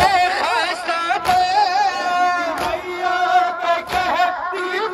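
A man sings a nauha, a Shia lament, in a wavering, ornamented voice, with a crowd of men joining in. Under the singing comes the crowd's matam: hands striking chests together in a slow, steady beat, about one thud every second and a third.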